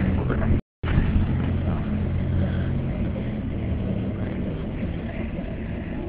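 Steady low hum of a vehicle engine idling, over an even background rumble; the sound cuts out completely for a split second about half a second in.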